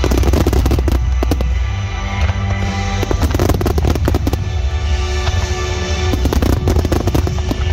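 Dense barrage of aerial firework shells bursting, many bangs and crackles in quick succession and in clusters, over loud music with a heavy bass.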